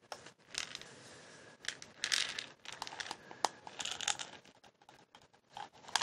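A plastic pill bottle handled close to the microphone: irregular bursts of scratching, tapping and crinkling as fingers and nails move over it, with a few sharp clicks.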